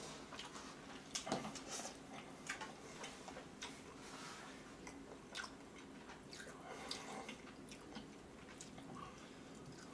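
Faint, scattered clicks and soft wet rustles of chopsticks stirring and lifting instant curry noodles in a cup.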